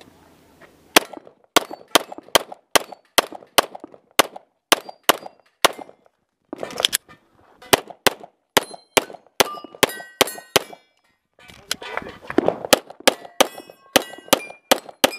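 Semi-automatic pistol fired rapidly, about two to three shots a second, in three strings with two short pauses. Many shots are followed by the short ring of a steel plate target being hit.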